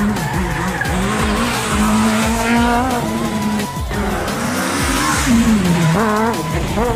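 Citroën C2 Super 1600 rally car's 1.6-litre four-cylinder engine at high revs, its pitch rising and falling with throttle lifts and gear changes as the car comes through a corner. Near the end the revs climb sharply several times as it accelerates away.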